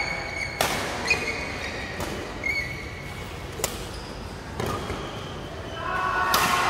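Badminton doubles rally in a large hall: about six sharp racket strikes on the shuttlecock at irregular intervals of half a second to two seconds, with short high squeaks of court shoes between them. A fuller, louder sound swells near the end.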